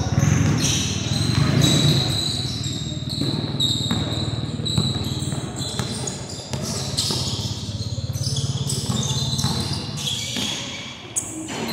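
Sounds of a basketball game on a concrete court: a basketball bouncing as it is dribbled, with repeated short knocks from the ball and players' feet over a steady low hum.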